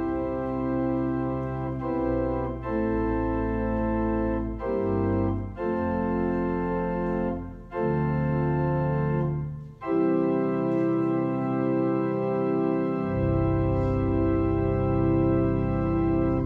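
Organ playing a slow hymn in sustained chords, the chords changing every second or two with short breaks between phrases; the last chord is held for several seconds and cuts off right at the end.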